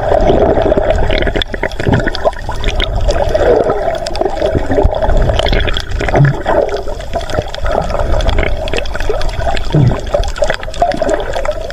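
Water heard from below the surface: a steady muffled rushing and gurgling, with a low rumble and scattered small clicks.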